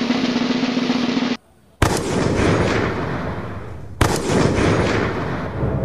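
Dramatic edited-in sound effects: a snare drum roll that cuts off about a second and a half in, a brief silence, then two sudden explosion-like booms about two seconds apart, each dying away.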